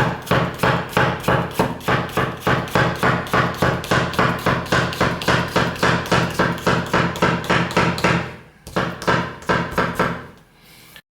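Kitchen knife chopping a bell pepper on a cutting board: quick, even knocks about four a second. They pause about eight seconds in, and a few more strokes follow before the sound cuts off.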